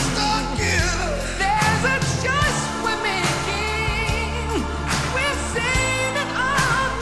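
Pop song with a singer and full band backing: a sung melody over bass and a steady drum beat.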